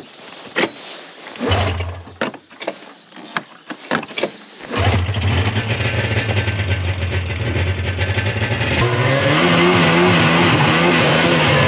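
Polaris 440 fan-cooled two-stroke snowmobile engine being started. After a few clicks, a short low hum dies out about a second and a half in. The engine catches about five seconds in and runs steadily, and its sound changes near nine seconds as the sled moves off.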